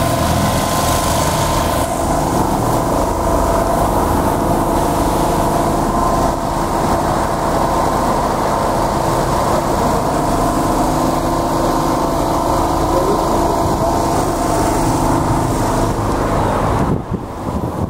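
Portable generator engine running steadily, a constant hum made of several steady tones. It drops away abruptly near the end, leaving wind noise on the microphone.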